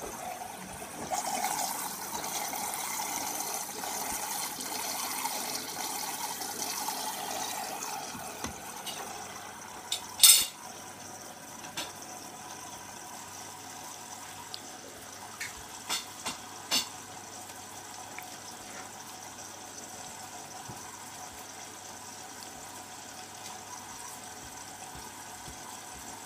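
Washing machine filling with water for its rinse: water running into the drum, easing off about eight seconds in, then a steady low running sound with a few sharp clicks, the loudest about ten seconds in.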